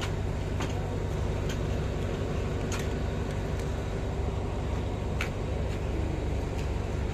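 Passenger train carriages rolling slowly past at close range: a steady low rumble with a few sharp clicks from the wheels and running gear.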